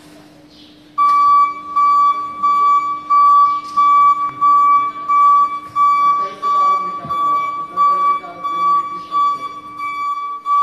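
Electric order picker's travel warning beeper sounding a steady high beep about twice a second while the truck moves, starting about a second in, over a steady low hum.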